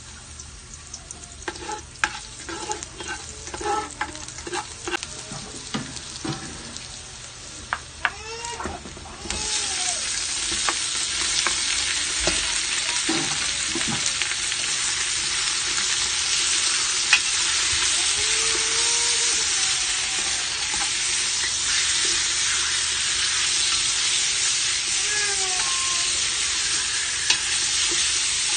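Garlic frying in oil in an aluminium stock pot, with a ladle stirring and scraping against the pot. About nine seconds in, raw chicken pieces go into the hot oil and a loud, steady sizzle takes over, with occasional ladle scrapes.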